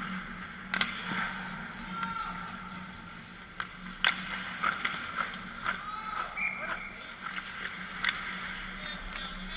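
Hockey game play: sharp stick-on-puck clacks at irregular moments, with players' short shouts and calls, over a steady low hum.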